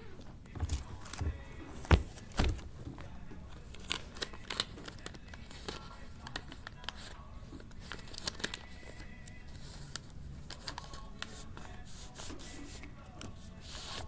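A stack of paper sheets being leafed through and handled close to the microphone: rustling and crinkling with many short sharp clicks, the loudest a knock about two seconds in.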